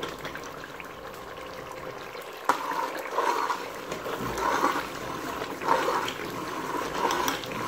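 Chicken curry bubbling at the boil in an open pressure cooker while a ladle stirs it, with one sharp knock about two and a half seconds in.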